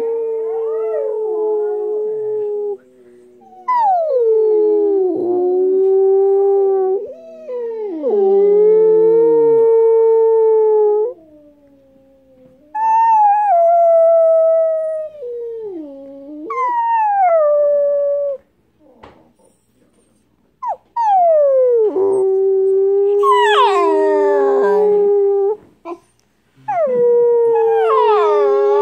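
Two Siberian huskies, one a puppy, howling together: a series of long howls that slide down in pitch at the start and then hold steady, the two voices overlapping, with short breaks between howls.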